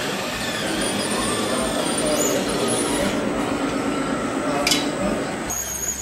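Indistinct voices over a steady mechanical hum, with a single click near the end; the sound changes abruptly about five and a half seconds in.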